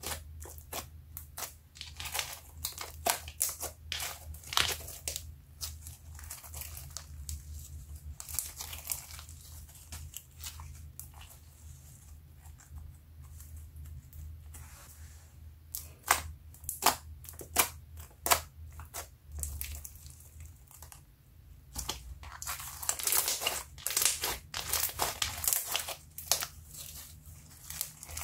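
Hands squeezing and kneading a thick, glossy slime with small beads mixed in: a run of sharp, sticky clicks and pops, thickening into a dense crackle for a few seconds near the end.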